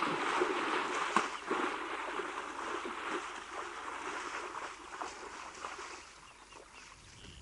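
Water splashing and sloshing as a young African elephant wades through a muddy waterhole and steps out onto the bank, with a few sharper splashes early on; the splashing dies away over the last couple of seconds.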